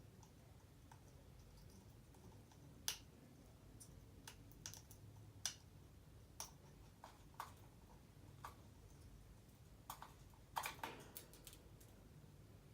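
African grey parrot making scattered sharp clicks. There are about a dozen, spaced irregularly, with a quick run of them near the end.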